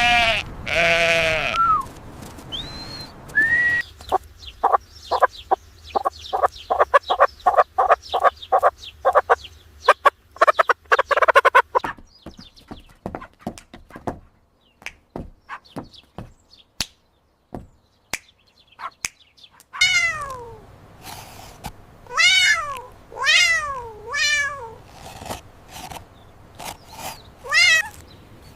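A run of recorded animal calls: a bleat at the very start, a long run of quick repeated short calls, scattered clicks, then several domestic cat meows, each one falling in pitch.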